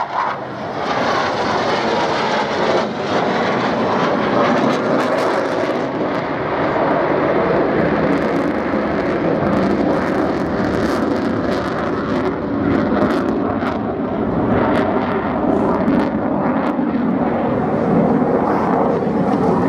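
McDonnell Douglas F/A-18C Hornet's twin General Electric F404 jet engines, heard as loud, steady jet noise as the fighter flies past.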